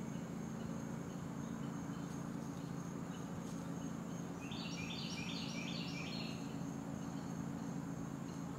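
Woodland background: a steady low hum and a continuous high insect drone, with a bird singing a short run of about five quick notes around five seconds in.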